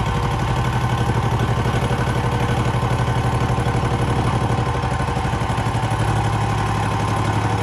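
Benchtop milling machine running with a steady hum as it mills down the cast aluminium transmission adapter ring.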